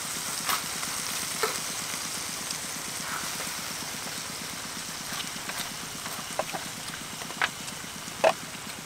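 Slices of beef sizzling steadily in butter and fat in a large wok. Several sharp clicks are scattered through, the loudest near the end.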